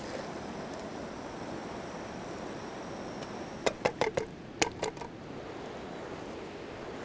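Steady rushing of a river. A little past halfway, a quick run of about six sharp clicks or taps cuts through it.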